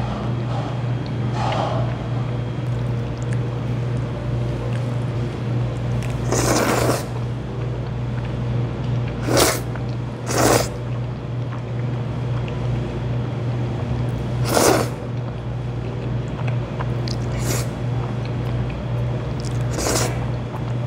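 Jajangmyeon noodles slurped from a bowl. There are about six separate loud slurps, the longest about a third of the way in, over a steady low hum.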